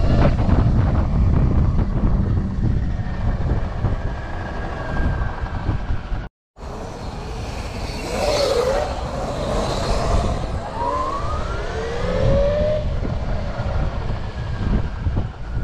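Wind buffeting the microphone of a moving rider, with the sound cutting out completely for an instant about six seconds in. In the second half, several rising whines of electric dirt bike motors under acceleration come through the wind.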